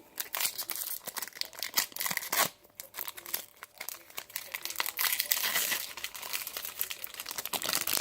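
Foil wrapper of a hockey trading-card pack being torn open and crinkled by hand: an irregular, continuous crackle of rustling and tearing.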